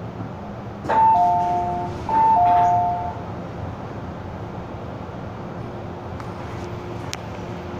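Two-note 'ding-dong' chime from the train's public-address system, a higher tone then a lower one, played twice about a second apart, marking the start of an on-board announcement. Underneath, the steady running noise of the MTR M-Train in motion.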